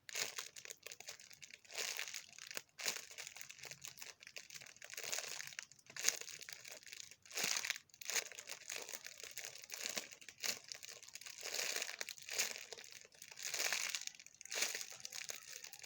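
Plastic packaging crinkling in irregular bursts with short pauses as a squishy toy is handled and unwrapped.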